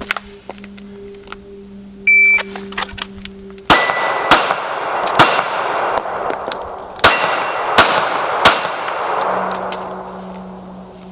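A short beep, then six 9mm shots from a SIG P320 pistol in two quick strings of three. Ringing steel follows the shots.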